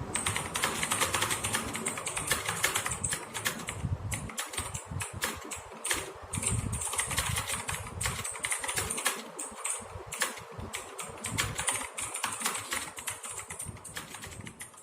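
Continuous fast typing on a TAG Gamerz Warrior mechanical keyboard, whose clicky switches are clones of Cherry MX Blue: a dense, unbroken run of key clicks.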